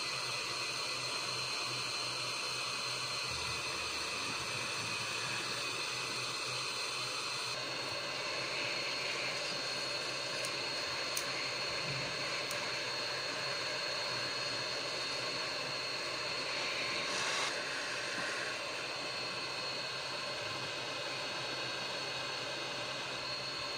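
Hot air rework gun of a JCD 8898 soldering station blowing a steady hiss of air with a faint high whine, heating a surface-mount chip to melt its solder. The hiss shifts slightly in tone about a third of the way in and again a little past two thirds.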